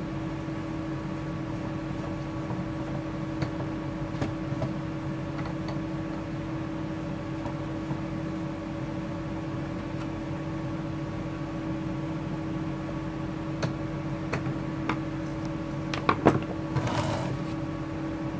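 Milwaukee M18 wet/dry vacuum's motor and impeller running on the bench out of its case, giving a steady hum; the owner hears a failing front bearing in it. A few clicks, and near the end a short rattle as the motor housing is handled and moved.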